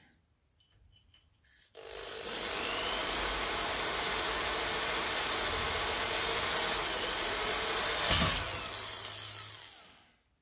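Electric drill starts about two seconds in and runs at a steady whine while boring a hole through a small brass plate clamped in a vise, its pitch dipping briefly under load. Near the end it is switched off and its whine slides down as it winds to a stop.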